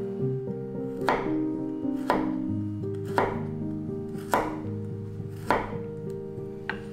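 Knife chopping on a cutting board: five sharp, evenly paced strikes about a second apart, with a lighter sixth near the end, over soft background music.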